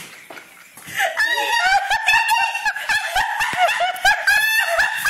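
High-pitched laughter that starts about a second in and goes on without pause.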